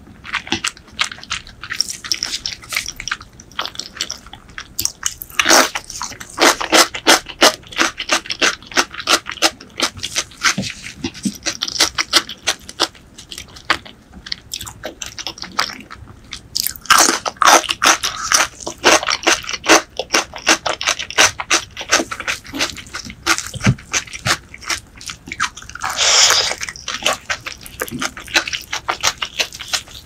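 Close-miked eating: wet chewing and crunching with a dense run of quick mouth clicks, from mouthfuls of braised pork leg and a crisp raw green vegetable dipped in chili sauce. Louder crunching bites come about five seconds in, again around seventeen seconds, and near the end.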